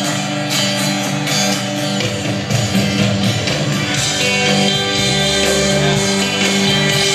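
Live rock band with an acoustic guitar strumming a song intro. Bass notes come in about two seconds in.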